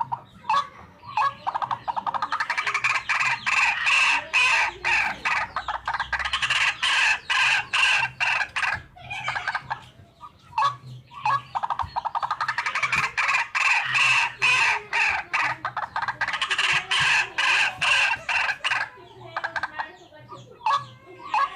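Waterhen calls, a recording of the kind used to lure the birds: rapid, evenly repeated notes in two long bouts with a short break in the middle.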